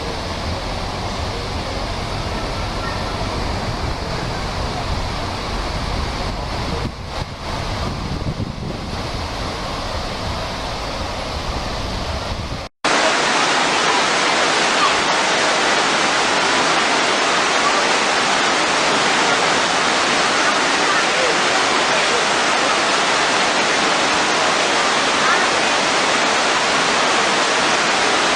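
A low rumbling noise, then after a sudden cut about twelve seconds in, the steady, even rush of a waterfall pouring down a rock face.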